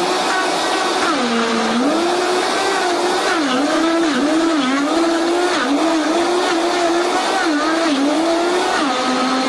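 Vitamix 5300 blender's 2.2 HP motor running loud, blending ice, orange, beet and carrot into a smoothie. Its pitch dips and recovers again and again as the load of ice and hard beet shifts, then settles to a steadier, lower pitch near the end.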